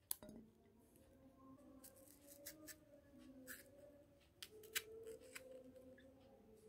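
Faint, irregular scrapes and ticks of a kitchen knife cutting into the skin of a raw green cooking banana (plantain).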